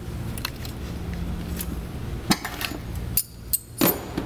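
A few sharp metallic clicks and clinks of a hand tool working the timing belt tensioner's center screw as it is tightened, over a steady low hum.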